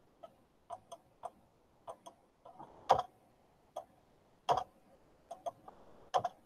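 Computer mouse clicking at an irregular pace, about a dozen short sharp clicks, with three louder ones about halfway through and near the end.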